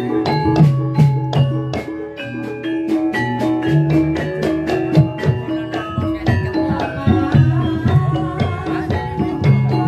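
Gamelan accompaniment for an ebeg trance dance: mallet-struck keyed instruments play a quick run of ringing notes over repeated low hand-drum strokes.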